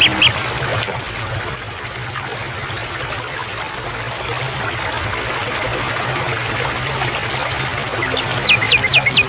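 Steady rush of flowing stream water. Bird chirps are heard briefly at the very start, and a few sharp downward chirps come near the end.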